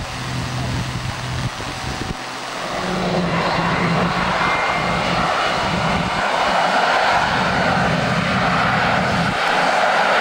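The Rolls-Royce Avon turbojet of a BAC Lightning F.6 on a static ground run. A low steady hum is heard in the first second and a half; from about two and a half seconds in the engine noise rises into a loud rush and then runs steadily.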